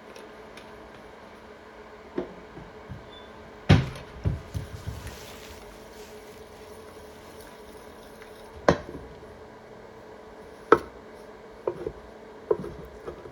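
Scattered kitchen knocks and clinks of utensils and dishes, with the loudest knock about four seconds in, over a faint steady hum.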